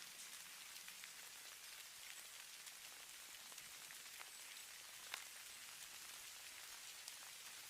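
Falling snow pattering faintly: a soft, steady hiss with many small ticks, and one slightly louder tick about five seconds in.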